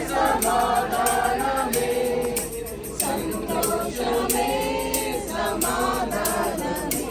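A group singing a worship song together, with a steady percussive beat of about four strokes a second.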